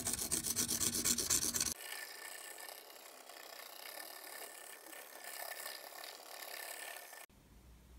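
Felt-tip highlighter marker rubbing over an etched wooden tabletop in rapid, even back-and-forth strokes. A little under two seconds in, the sound drops abruptly to a much fainter rubbing, which stops near the end.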